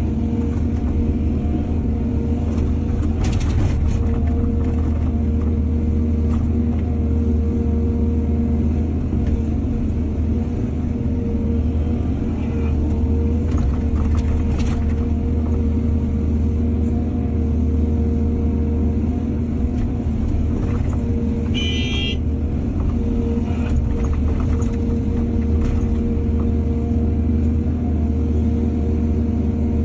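Excavator's diesel engine running steadily under working load, with a few knocks from the digging and loading. A brief high squeal comes about two-thirds of the way through.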